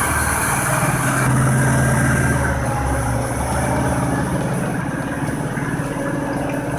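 A machine's engine running steadily with a low hum, easing off slightly toward the end.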